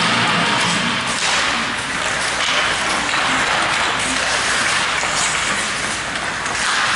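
Ice hockey play: skate blades scraping the ice and sticks knocking, heard as a steady hiss with a few faint knocks.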